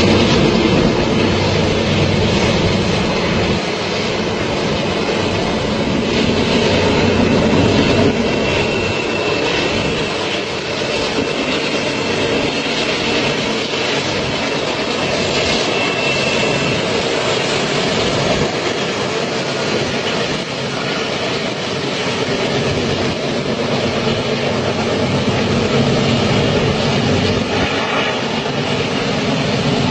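Train rolling along the rails with a steady rumble and rattle of the wagons, and a faint high wheel squeal from about eight to sixteen seconds in.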